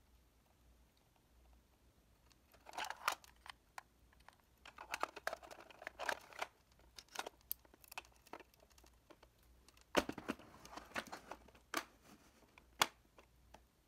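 Small miniature pieces being handled: bursts of crinkling mixed with light clicks and taps, starting about three seconds in, with the sharpest taps near ten and thirteen seconds.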